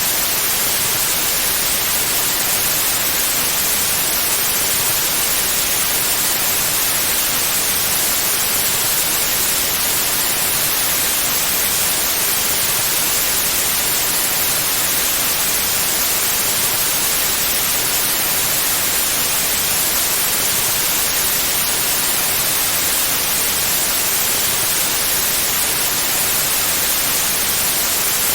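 Steady electronic white noise: an even, unchanging hiss, brightest in the high end.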